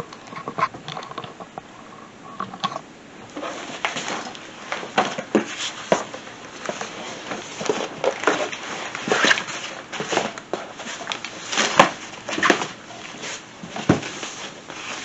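Irregular rustling, clicks and knocks of folding portable solar panels being handled and packed away.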